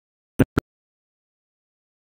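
Two short, sharp clicks about a fifth of a second apart, with dead silence around them.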